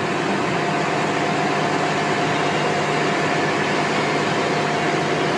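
Walt Disney World monorail train running past on its elevated concrete beam: a steady electric running noise with a faint steady tone.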